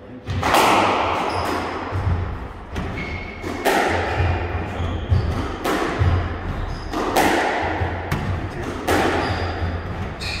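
Squash rally: the ball struck by rackets and smacking off the court walls about once a second, each hit echoing round the court, with short high squeaks of shoes on the wooden floor between hits.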